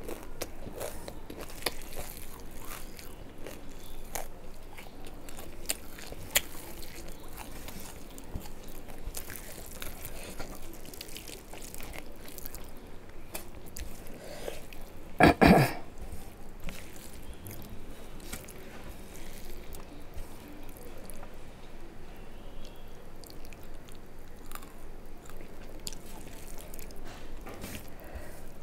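A person eating rice and fish curry by hand: close-up chewing, with wet clicks and squishes from fingers mashing rice on a metal plate. About halfway through comes one brief, louder sound from the throat or voice.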